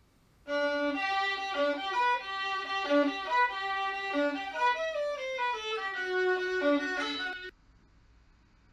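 Solo violin playing a melody note by note, with a stepwise falling run of notes about two-thirds through. It starts about half a second in and stops about a second before the end.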